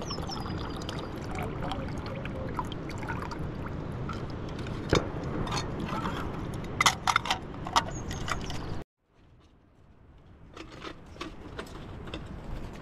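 Water running from a tap into a kettle, with several sharp clinks near the middle as the kettle is handled and lifted away. The sound cuts off abruptly about two-thirds of the way through, leaving quieter outdoor background with a few light taps.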